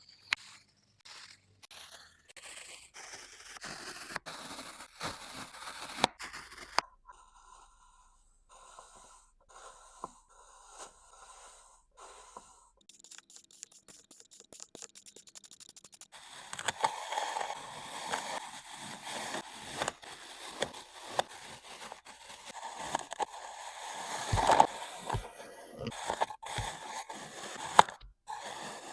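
Kinetic sand being cut and sliced with a tool: a series of soft scraping, crunching strokes with sharp clicks. About halfway through there is a short stretch of rapid fine ticking, and the second half holds denser crunching.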